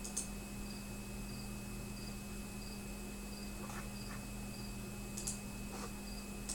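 Steady electrical hum under a faint, high, cricket-like chirp that repeats evenly about every two-thirds of a second, with a few sharp clicks, one near the start and one near the end.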